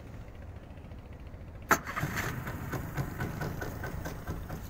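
A 40-horsepower outboard motor on a fibreglass boat: a low steady rumble, then a sharp clunk about two seconds in, after which the motor runs louder and rougher as the boat gets under way.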